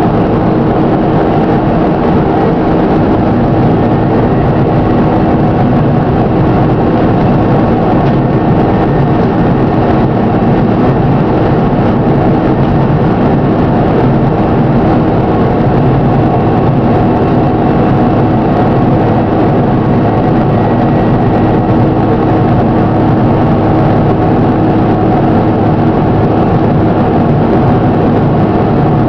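Engine of a Plaxton President double-decker bus running steadily, with the bad engine knocking it is recorded for.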